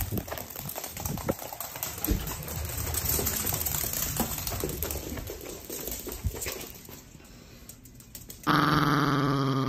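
A chihuahua's claws click and skitter irregularly on a hardwood floor as it runs about. Near the end a loud, sustained pitched sound starts suddenly.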